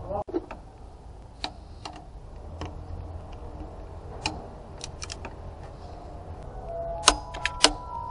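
Scattered metallic clicks and clinks of hand tools and engine parts being handled during repair work, with two sharper knocks near the end.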